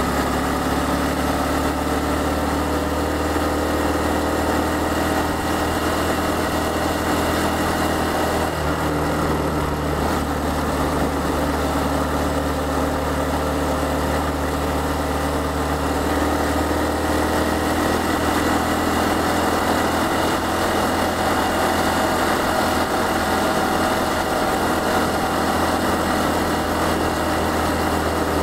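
Honda Cross Cub 110's single-cylinder four-stroke engine running steadily as the motorcycle cruises along, heard from the rider's position. Its pitch shifts only slightly, over a constant rush of noise.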